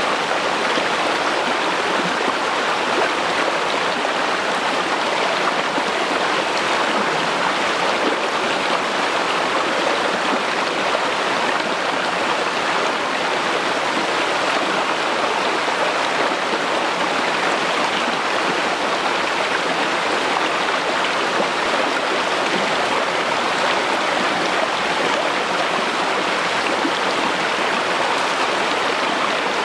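Steady rush of running water in a shallow rocky stream, an even noise with no breaks.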